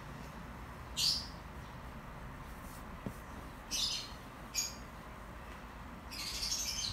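Thumbs rubbing and kneading a cotton bedsheet close to the microphone: four short, scratchy swishes of cloth, one about a second in, two close together around four seconds in, and a longer one near the end.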